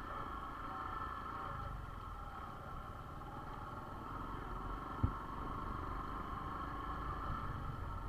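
Small vehicle running steadily as it travels along a rough dirt track, with a steady high hum over a low rumble and one knock about five seconds in.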